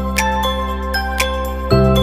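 Background music: a steady instrumental track with sustained chords changing every second or so, and bright, bell-like struck notes.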